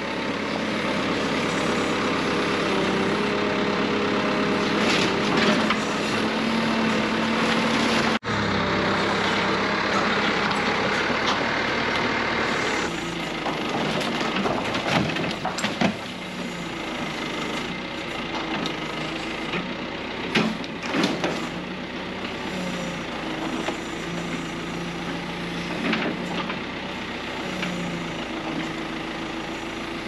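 Terex 760 backhoe loader's diesel engine running under working load, its pitch shifting as the arm and bucket move, with repeated crashes and clatter of wood and sheet-metal debris as a mobile home is torn down. The sound cuts out briefly about eight seconds in.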